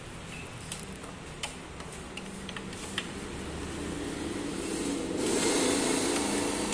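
A few sharp metallic clicks and taps of a spanner on the high-pressure fuel-line nuts of a common-rail diesel's injectors as they are tightened. Over a steady background hum, a louder even rushing noise swells up about four seconds in.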